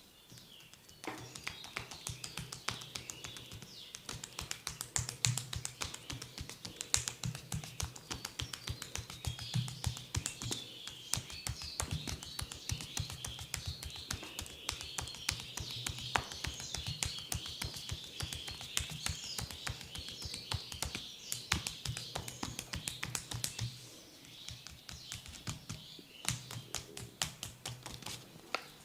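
Rapid percussive tapping massage strokes on the body, many sharp taps a second, with music playing underneath.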